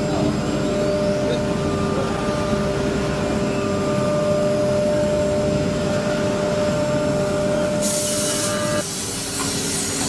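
Woodworking panel machinery running: a steady motor hum with held tones. About eight seconds in a high hiss starts, and shortly after, one of the motor tones cuts off.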